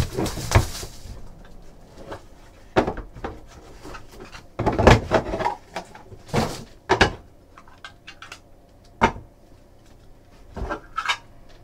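Shrink wrap torn off a trading card box with a brief ripping hiss. Then come scattered clicks and rustles of cardboard and a clear plastic card case being opened and handled.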